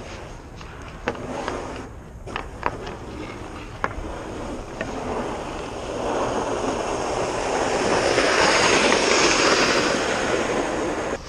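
Hockey skate blades scraping and carving on outdoor rink ice, with a few sharp clicks of sticks or puck on the ice in the first seconds. The scraping builds from about halfway through and is loudest near the end.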